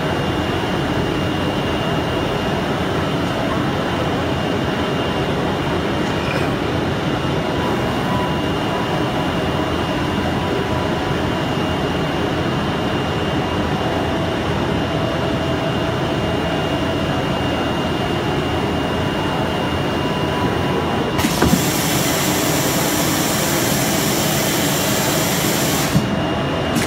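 CNC flatbed knife-cutting table with a conveyor, running while cutting sticker film: a steady machine noise with a faint high whine. About 21 seconds in, a loud hiss comes on for about five seconds and then stops.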